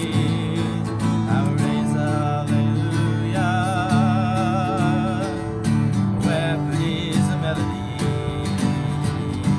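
Acoustic guitar strumming a worship song. From about three and a half to five seconds in, a held, wavering melody note sounds over the chords.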